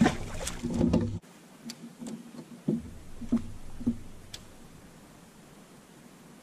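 Dull knocks on an aluminium jon boat's hull, three of them a little over half a second apart near the middle, with a few light ticks between them. A faint hiss follows.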